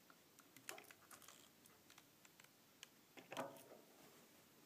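Near silence with faint scattered clicks and ticks, a little louder about a second in and again about three and a half seconds in.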